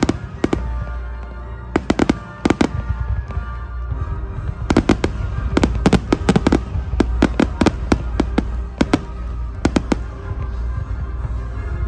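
Aerial fireworks shells bursting in quick clusters of sharp bangs over a steady low rumble, with music playing underneath.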